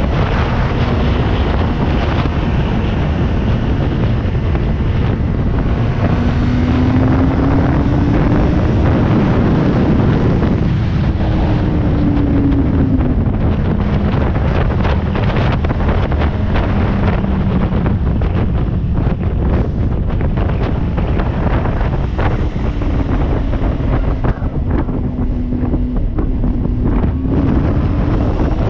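A motorcycle engine running while riding. Its note climbs and falls a few times with the throttle, under heavy wind rushing over the microphone.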